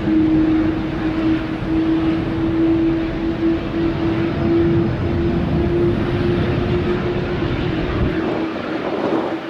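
Airbus A330 jet engines running: a continuous loud rumble with a steady held whine that fades out near the end.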